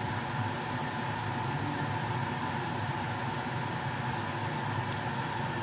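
Steady machine-like hum and hiss, like a running fan, with a few faint light ticks near the end.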